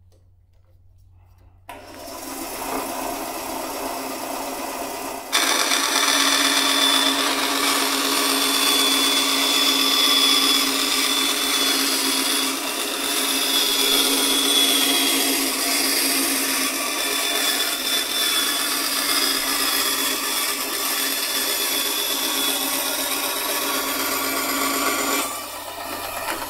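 Vevor 10-inch bandsaw switched on, its half-horsepower motor starting up a couple of seconds in. From about five seconds in the blade rips a long 1x6 pine board with a louder, steady cutting sound, and near the end the cut is through and the saw runs free.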